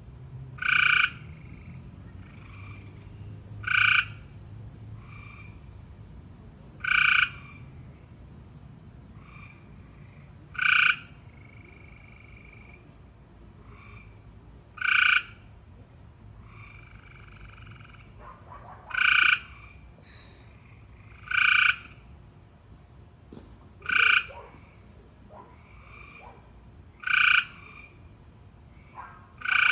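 A frog calling over and over: about ten short, loud calls, each about half a second long and spaced every three to four seconds, with fainter calls in between.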